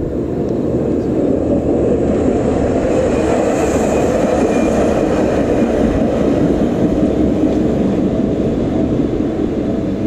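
HU300 three-section low-floor light-rail tram passing close by. Its running noise swells to a peak in the middle and eases a little as it moves away near the end.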